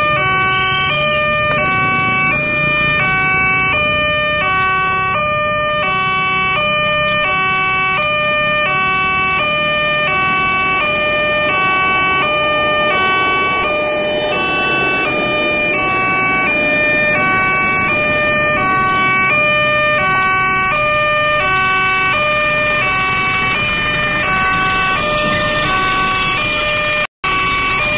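Railway level-crossing warning alarm from the loudspeaker on the crossing post, sounding a steady repeating electronic chime of alternating tones while the barriers are down. It cuts out for an instant near the end.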